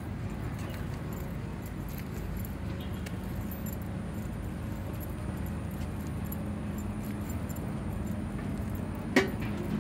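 Steady low rumble of road traffic passing on a multi-lane road, with faint scattered clicks and one sharp click about nine seconds in.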